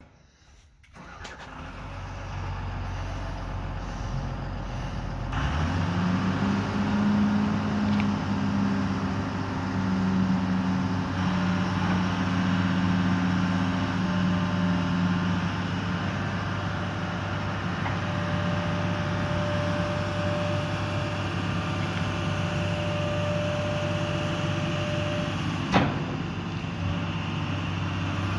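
Diesel engine of a 2001 Case CX210 long-reach excavator, starting low, then revving up about five seconds in and running steadily as the boom and bucket are worked. There is a steady whine for several seconds in the second half and a single sharp clunk near the end.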